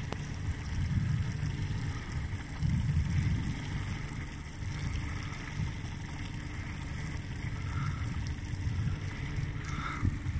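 Wind buffeting the microphone, a gusty low rumble that swells and fades.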